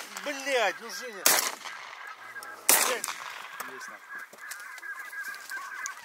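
Two shotgun shots about a second and a half apart, with loud goose honks just before them. After the shots a flock of geese keeps calling, fainter and overlapping.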